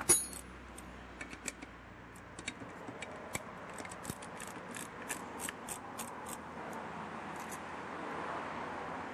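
Light metallic clicks and ticks from a screwdriver and small bolts as the air funnels are unbolted from a Weber DCOE carburettor. A sharper click comes right at the start; the clicks stop about seven and a half seconds in, leaving a faint steady hiss.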